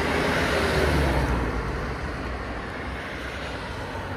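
A car driving past on the street: road noise and engine rumble swell to a peak about a second in, then slowly fade.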